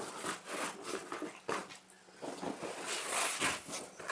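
A cardboard sheet scraping and rubbing against the inside of a fabric seat cover as it is pushed in, with the fabric rustling; the noise comes in uneven strokes and is loudest about three seconds in.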